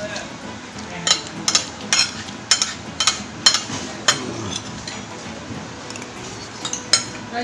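A metal fork clinking and scraping against a plate of fried rice while someone eats: a quick run of about seven sharp clinks in the first few seconds, then a couple more near the end.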